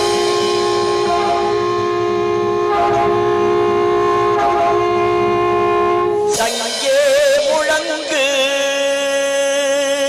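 Conch shells (sangu) sounding a long, steady, loud blast in a recorded song. About six seconds in, it gives way to a wavering, trembling held note.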